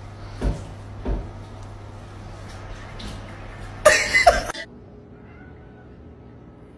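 Two short dull thumps, then a loud, harsh cat yowl lasting about half a second.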